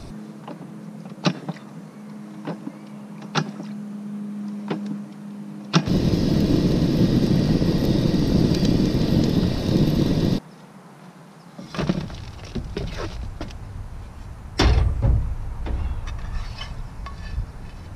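Salmon and halved Brussels sprouts frying in pans on a Coleman propane camp stove: several seconds of loud sizzling in the middle, with scattered clicks and knocks of a spatula against the pans before and after. A steady low hum runs through the first few seconds.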